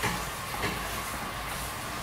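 Tomato sauce simmering in a frying pan on a gas stove: a steady hiss and low rumble, with two short pops, one at the start and one just over half a second in.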